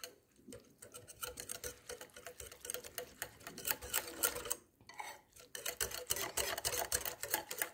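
A wire whisk beating thick semolina-and-curd idli batter in a steel bowl, its wires clicking against the bowl in rapid strokes, with a brief pause about four and a half seconds in. The batter is being whisked to break up the lumps of curd.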